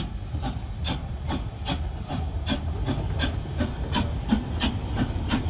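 Narrow-gauge steam train under way: a steady low rumble with a regular beat about three times a second.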